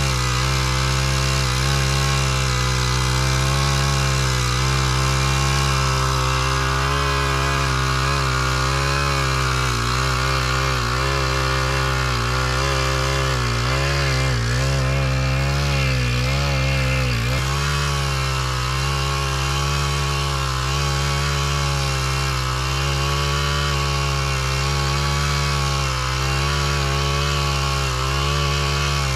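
Small engine running steadily, its pitch wavering a little in the middle as the throttle shifts.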